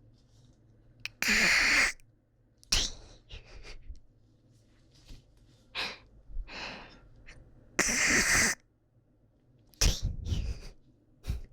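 A person hawking up phlegm with a harsh throat-clearing 'kak' and spitting 'ptoo', over and over. It comes as a string of short, harsh bursts, two of them long and loud, one about a second in and one near eight seconds.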